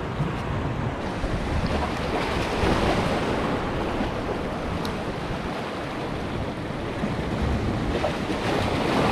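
Waves washing and splashing against the boulders of a rock jetty, with wind buffeting the microphone; the surf surges louder about three seconds in and again near the end.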